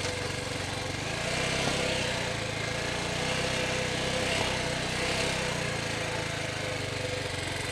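TDR 300 dirt bike engine running steadily while riding a dirt single track, with small swells in level.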